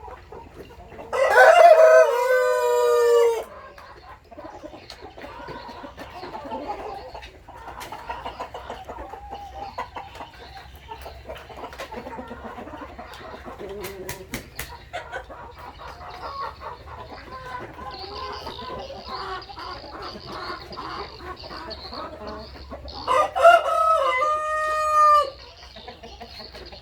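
Brahma rooster crowing twice, each crow about two seconds long, one near the start and one near the end, with the flock clucking more quietly in between.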